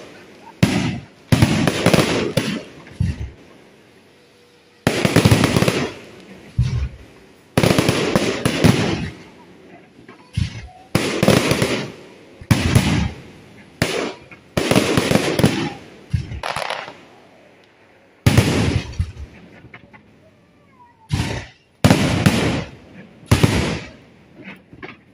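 Aerial fireworks exploding one after another, about fifteen sudden blasts, each trailing off over a second or so, with short lulls between volleys.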